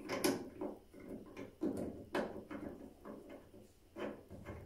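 Irregular small clicks and knocks of a tap handle and its chrome cover being turned and screwed back onto a bath tap by hand.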